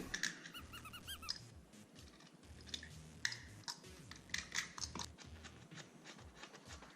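Faint scraping and scratching at dog-chewed cabinet wood in short, irregular strokes as the high spots and splinters are cleaned off.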